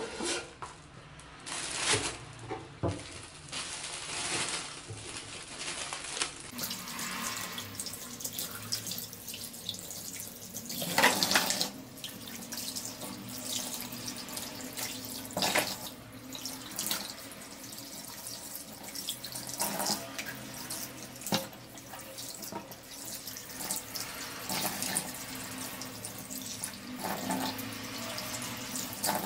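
Tap water running into a stainless steel sink while raw chicken pieces are rinsed under it by hand, with splashes and a few sharp knocks.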